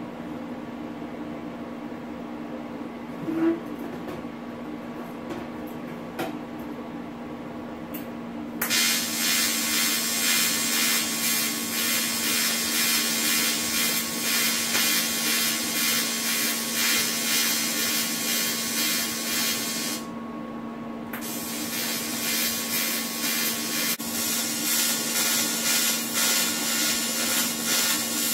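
Electric arc welding on sheet metal: a steady machine hum, then about nine seconds in the arc strikes and crackles continuously for about eleven seconds, stops for a second, and strikes again, crackling through the rest.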